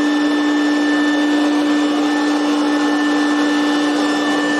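Electric fan-motor drying appliance running steadily with a constant high whine, used to dry up floodwater around a water heater.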